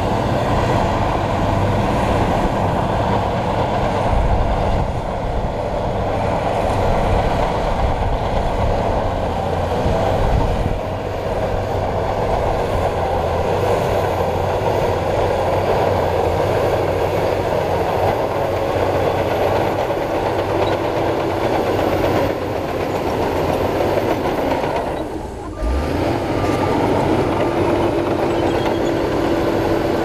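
Shantui crawler bulldozer working: its diesel engine runs steadily under load and its steel tracks roll as it pushes soil and stone. The sound drops briefly and comes back suddenly about 25 seconds in.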